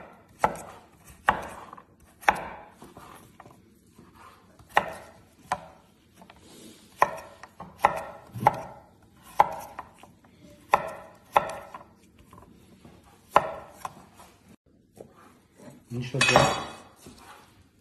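A large kitchen knife cutting carrots on a wooden cutting board: single sharp knocks of the blade going through the carrot and onto the board, at an uneven pace of about one a second. A longer, louder clatter comes near the end.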